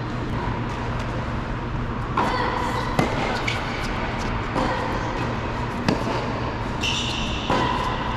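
Tennis rally on an indoor hard court: sharp racket-on-ball hits about three seconds apart, with short high squeaks between them over a steady low hum.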